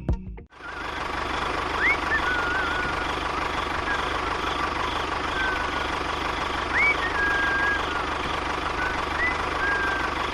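Small engine of a miniature model tractor running steadily, with a fine rapid pulsing, after music cuts off about half a second in. Short rising whistles, each settling into a level note, come four times over it.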